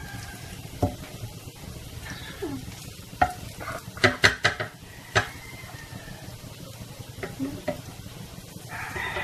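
Chopped garlic sizzling in oil in a nonstick frying pan while a spatula stirs it, with scattered sharp knocks of the spatula against the pan and a quick cluster of them about four seconds in.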